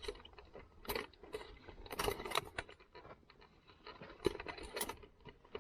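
Irregular clicks, taps and rustling of small objects being handled, a few sharper knocks about two seconds in and again near the end.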